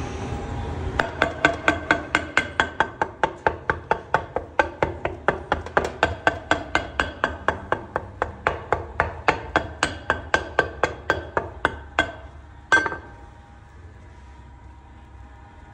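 A handheld pin docking stamp knocked repeatedly into bread dough on a board, about three to four even knocks a second, each with a short ring. The knocking stops about 12 seconds in, followed by one louder knock.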